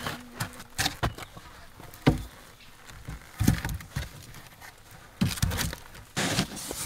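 Irregular knocks and scuffs of thin wooden poles being handled and shifted into place, wood knocking on wood.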